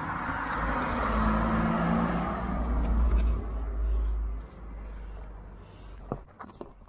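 A passing vehicle: rumble and road noise that swell and then fade away after about four and a half seconds, with a few small clicks near the end.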